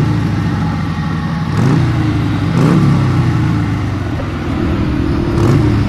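ATV engine running while riding along a dirt road. Its pitch rises about one and a half seconds in, then dips and climbs again near the middle as the throttle changes.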